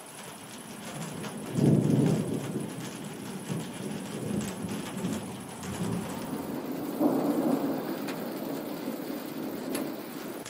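Thunderstorm: thunder rumbling twice over steady rain. The louder peal comes about a second and a half in, and a second rumble follows about seven seconds in.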